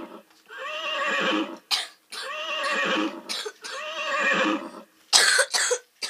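A wavering, whinny-like cry repeated four times, each about a second long and rising then falling in pitch, with a couple of sharp knocks between them and a short, louder scuffle of handling noise near the end.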